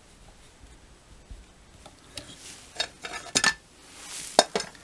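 Small metal chainsaw parts clinking and rattling as they are handled, in scattered sharp clicks that start about two seconds in, with a brief rubbing hiss shortly before the last clicks.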